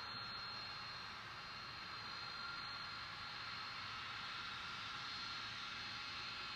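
Steady distant noise of jet aircraft engines, a even rush with a thin high whine.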